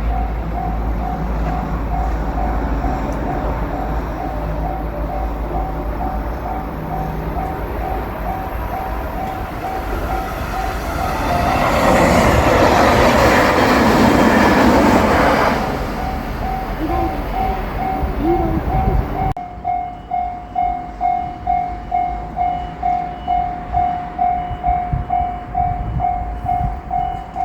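Japanese level-crossing warning bell clanging steadily, about two strikes a second, as a JR Shikoku 8000 series train passes through the crossing. The train is loudest for about four seconds near the middle, then fades.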